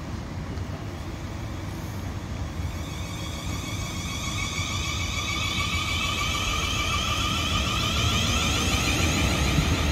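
Class 450 Siemens Desiro electric multiple unit pulling away from the platform. Its traction inverters give a whine of several tones that climb steadily in pitch as it gathers speed, over a low rumble that grows louder.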